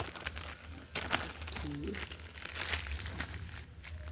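Small paper packets and packaging crinkling and rustling as they are handled, in irregular crackles throughout.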